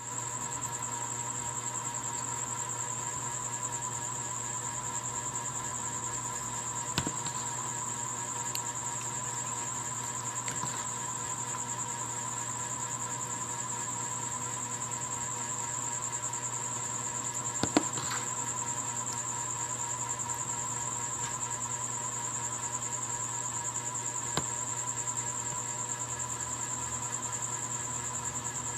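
Steady, unbroken insect trilling, with a low hum beneath it and a few brief clicks, the loudest about two-thirds of the way through.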